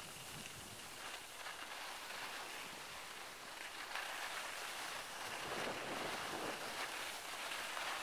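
Skis sliding over a groomed snow track, a steady hiss, with wind on the microphone; it gets a little louder about halfway through.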